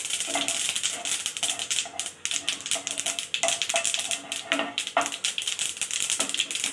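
Mustard seeds spluttering in hot cooking oil: a dense, irregular rapid crackling and popping as the seeds heat.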